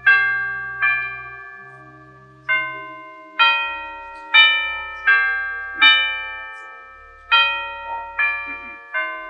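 Organ music with a slow melody on chimes: about a dozen single bell-like notes, each struck and then fading, over soft held low organ notes.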